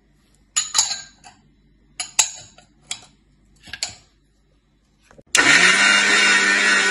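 A few knocks and clinks of the steel grinder jar and lid being handled, then about five seconds in an Inalsa electric mixer-grinder switches on and runs at full speed, grinding dry-roasted cumin, fennel and curry leaves into powder.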